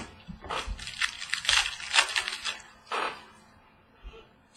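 Trading card pack and cards being handled: a run of crackling and rustling with sharp clicks, then a shorter rustle about three seconds in.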